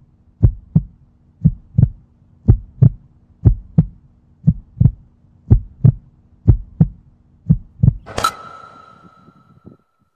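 Heartbeat sound effect: pairs of low thumps, lub-dub, about once a second over a faint steady hum. About eight seconds in comes a single sharp crack with a ringing tone that fades away.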